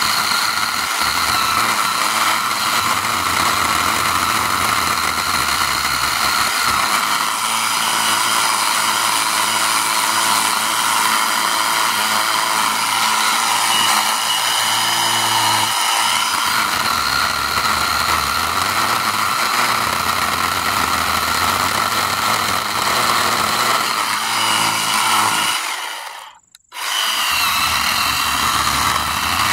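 Craftsman V20 10-inch battery-powered electric chainsaw running under load, its chain cutting into a dense hardwood stump with a steady whine. Near the end the motor stops for about a second, then starts up and cuts again.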